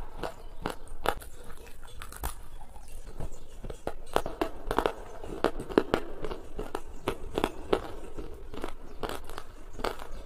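A person chewing a crunchy mouthful close to the microphone: irregular sharp crunches, about two or three a second.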